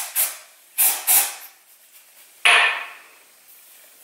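Batiste dry shampoo aerosol can sprayed in short hissing puffs: one right at the start, two quick ones about a second in, and a longer, louder spray about two and a half seconds in.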